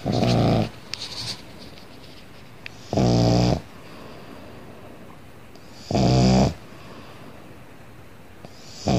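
Pug snoring in its sleep: short snores about every three seconds, each well under a second long, with a rasping pitched rattle.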